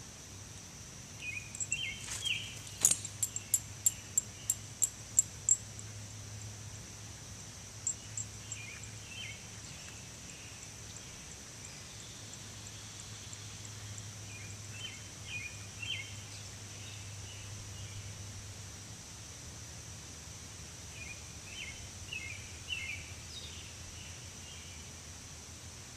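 Outdoor ambience of birds and insects: a steady high-pitched insect drone, with birds chirping and calling on and off, and a rapid run of about eight sharp, high chips a few seconds in.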